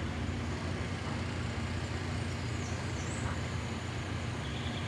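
Steady low rumble of outdoor background noise, with a few faint high chirps between about two and three seconds in.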